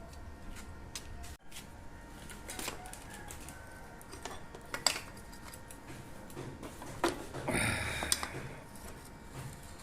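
Scattered sharp clicks and light metallic clatter of small tools and bicycle pedal parts being handled on a workbench, with a short rustling burst about three quarters of the way through.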